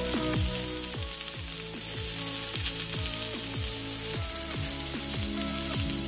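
Steak sizzling in a cast-iron skillet, a steady high hiss, under background electronic music with a kick-drum beat about twice a second.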